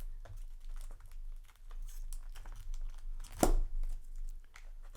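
Packaging of a sealed trading-card display box being torn open and handled: crinkling and tearing with scattered small clicks, and one sharp snap about three and a half seconds in.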